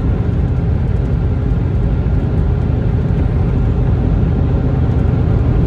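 Steady road and engine rumble inside a moving vehicle's cabin while driving.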